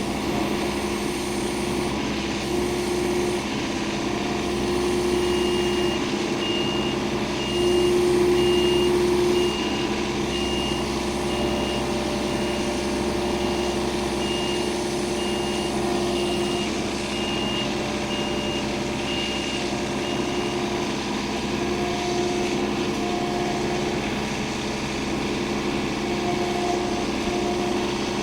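A heavy machine's engine running steadily, rising briefly about eight seconds in, while its reversing alarm beeps about once a second from about five seconds in until about twenty seconds in.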